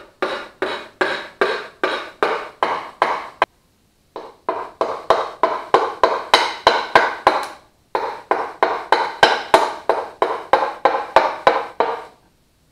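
Light hammer taps driving a piston down through a ring compressor into the cylinder of a Duromax 440cc engine. They come in three runs of about three taps a second, with short pauses near 4 and 8 seconds in, and each tap rings briefly.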